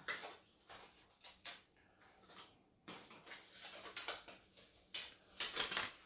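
Soft, irregular rustling and light taps of card-stock name cards being handled and drawn from a box, busier in the second half.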